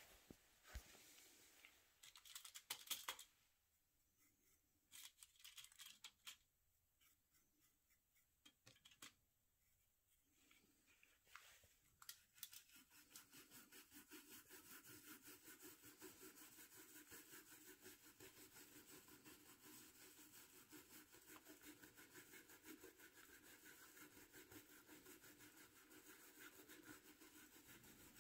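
Faint scrubbing of an old toothbrush's bristles on a shotgun fore-end's checkering, working in a thin base coat of Tru-Oil thinned with mineral spirits. There are a few short scrapes at first, then a long run of quick, even strokes, about five a second, from a little before halfway on.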